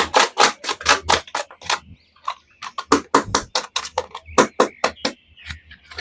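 A rapid series of sharp clicks and taps, about four to five a second, pausing for about a second in the middle before starting again.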